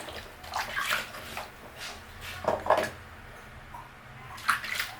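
Bathwater splashing and sloshing in a small tub as a baby monkey is washed, in a handful of short, scattered splashes.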